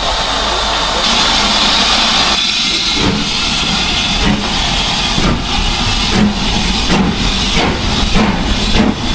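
BR Standard Class 5MT 4-6-0 steam locomotive hissing steam from its open cylinder drain cocks, then pulling away. Its exhaust beats start about three seconds in and quicken as it gathers speed.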